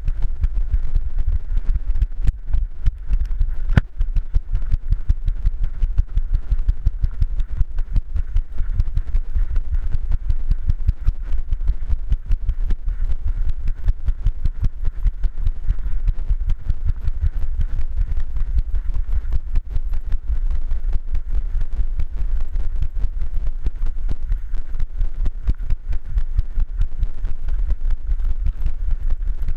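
Rapid, steady thumping and jostling from a GoPro worn by a running dog, the camera jolting with each stride as the dog's feet strike the trail.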